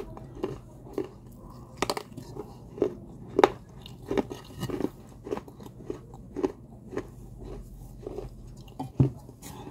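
Chewing and biting through pieces of an unglazed terracotta clay pot: a steady run of sharp, dry crunches, about one to two a second, the loudest near two, three and a half and nine seconds in.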